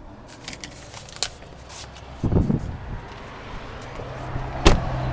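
Scattered clicks and knocks of handling inside a car, with a short cluster of thumps a little past halfway and a single sharp click near the end; a low steady hum sets in during the second half.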